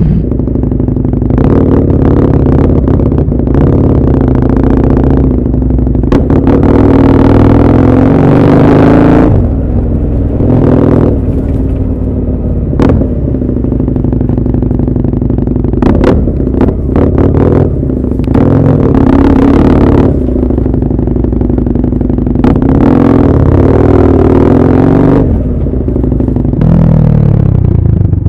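Motorcycle engine running hard while riding, its pitch climbing as it accelerates and dropping back several times as the throttle is shut off or a gear is changed.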